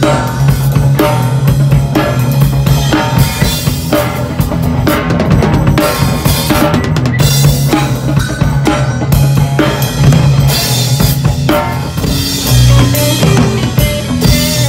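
A band playing loud: a drum kit pounded with dense bass drum, snare and cymbal hits over sustained low notes from an electric guitar.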